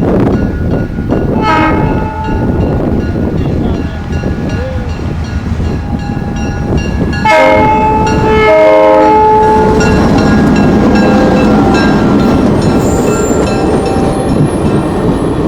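Cuyahoga Valley Scenic Railroad train's horn sounding a chord, briefly about a second and a half in and again for about two seconds from around seven seconds in, over the loud steady rumble of the train rolling by.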